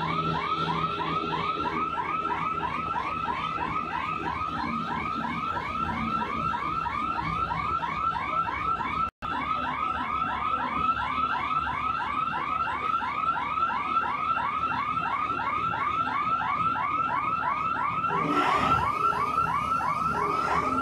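Mobile crane's electronic warning alarm chirping rapidly and without a break, about four or five warbling chirps a second, over the low steady run of the crane's engine. Near the end there is a short burst of hiss.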